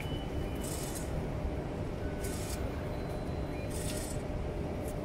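Metro ticket vending machine dispensing travel cards and change: short hissing bursts from its mechanism about every second and a half, over a steady background rumble.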